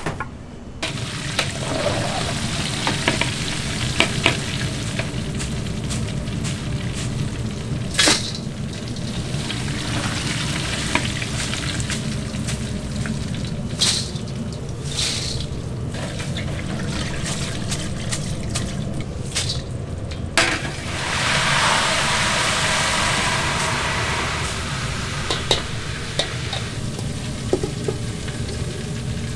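Beef sizzling on a hot cast-iron grill plate, a steady hiss with scattered sharp clicks. The sizzling swells louder for a few seconds about two-thirds of the way in.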